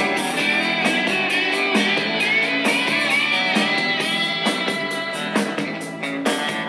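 Guitar-driven rock music playing through a pair of small iHome iHM79 portable speakers, with a steady beat and no deep bass.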